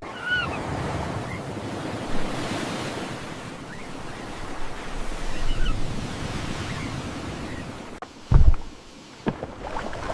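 Rushing water and wind, like heavy surf, with a loud low thump about eight seconds in.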